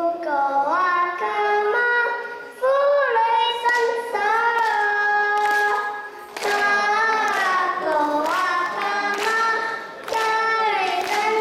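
A young girl singing a melody unaccompanied into a microphone, in about four phrases with short breaths between.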